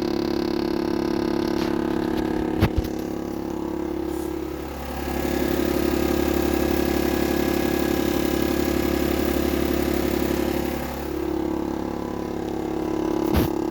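A 2022 GMC Yukon's 3.0-litre Duramax diesel runs steadily, heard from inside the cabin. About five seconds in, a loud low rattling vibration from under the center console near the floor sets in and stops again about six seconds later; the vibration can be felt through the floor, and its cause is unknown. Two short clicks come before and after it.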